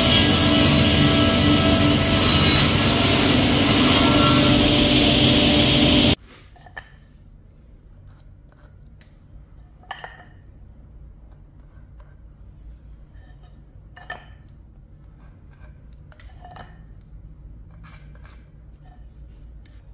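Woodworking power tool running loudly with a steady whine, cut off abruptly about six seconds in. Then a few faint taps and knocks, about five of them spread apart.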